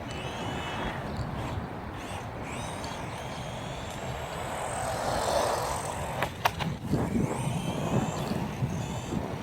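Battery-powered GP Toys Luctan S912 1/12-scale two-wheel-drive off-road RC car being driven, its motor whining up and down with the noise of its tyres on the ground. It swells louder about five seconds in, with two sharp clicks about six and a half seconds in, then a rougher, bumpier rumble.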